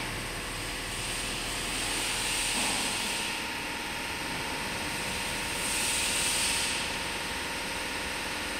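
Steady machine noise, a faint hum under a constant hiss, with two louder swells of hiss, one about a second in and one around six seconds in.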